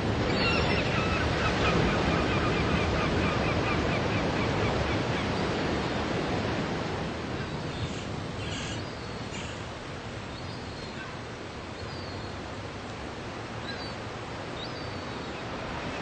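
Ocean surf breaking and washing up a sandy beach: a steady rush that is loudest over the first several seconds, eases off about halfway through, and builds again near the end.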